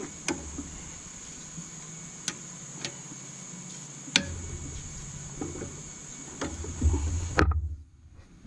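Scattered sharp metallic clicks and knocks of a socket and breaker bar working on cylinder-head bolts, with low thumps between them, over a steady high hiss. The sound nearly drops out briefly near the end.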